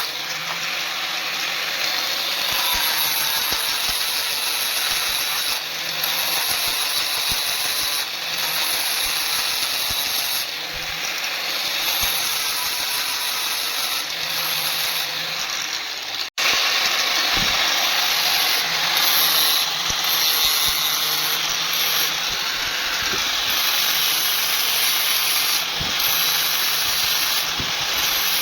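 A power tool running steadily with a hissing, grinding-like noise. It stops abruptly for a moment about 16 seconds in, then carries on.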